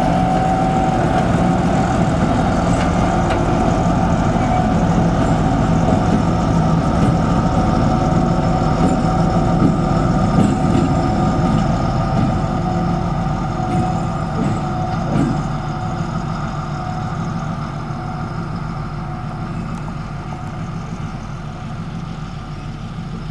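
M62 diesel locomotive's two-stroke V12 diesel engine running with a steady, even note as the locomotive moves slowly away, the sound fading gradually over the second half.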